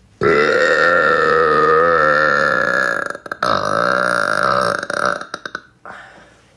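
A woman's long, loud, deliberate burp lasting about three seconds, then after a brief break a second, shorter burp that breaks up into a fluttering rattle as it dies away.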